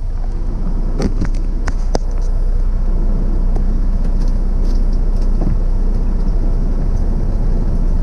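A semi-truck's diesel engine running, heard from inside the cab as a steady low rumble, with a few sharp clicks about one to two seconds in.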